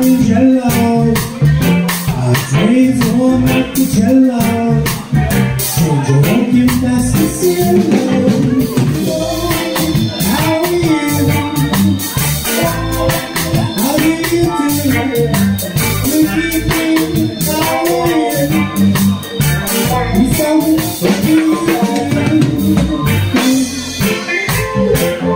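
Live band playing: a stage keyboard, an electric guitar and a drum kit with cymbals, in a steady rhythm.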